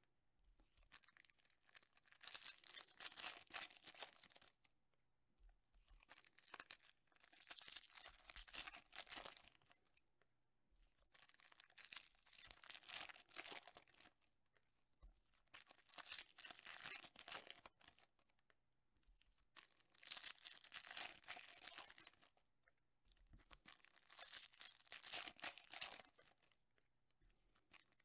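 Foil trading-card pack wrappers being torn open and crinkled, one pack after another. The sound comes in repeated bursts of two to three seconds, about every four seconds.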